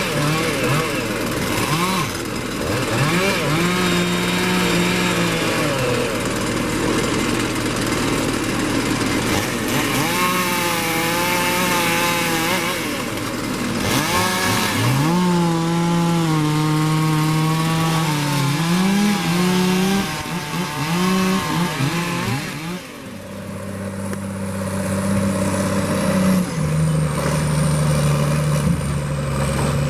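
Engines of logging equipment running and revving up and down for the first twenty-odd seconds. About 23 s in, a steadier, lower-pitched engine takes over.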